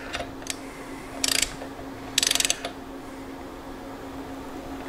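Socket wrench ratcheting in two short bursts of rapid clicks, running a drain plug back in and tightening it to torque.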